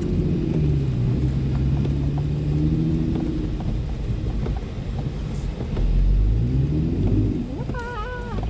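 Vehicle engine and road rumble heard from inside the cab, running steadily and then rising in pitch as it accelerates toward the end.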